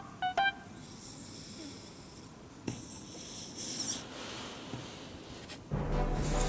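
Shiba inu giving two long, wheezy, airy snorting breaths, the pig-like 'buu-buu' noises it makes while its belly is rubbed. Background music comes in near the end.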